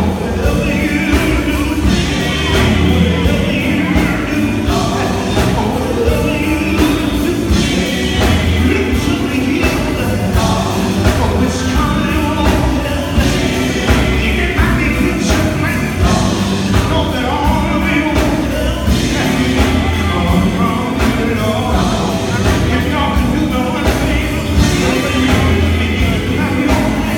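Live gospel band playing: a lead vocalist singing into a microphone over electric guitar and a drum kit keeping a steady beat.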